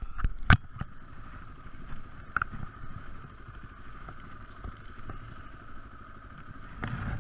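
Yamaha XT225 Serow's single-cylinder four-stroke engine idling steadily, with a few sharp knocks in the first half-second and a louder swell just before the end.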